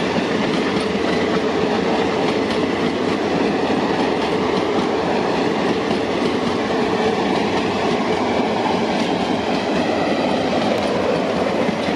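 Passenger coaches of an express train rolling past at speed: a steady, loud rumble of steel wheels on rail with a light clickety-clack of wheels over rail joints.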